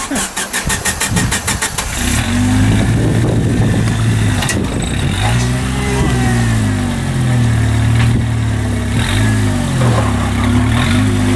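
Jeep Wrangler engine under low-speed rock-crawling load. After about two seconds of fast, even pulsing, it runs steadily, its revs rising and falling as the Jeep climbs over boulders.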